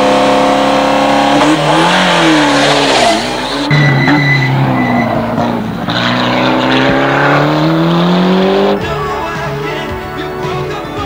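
Ford Sierra Cosworth rally car's turbocharged four-cylinder engine, first revving up and down, then pulling hard with one long rise in pitch. Near the end the engine cuts off and music takes over.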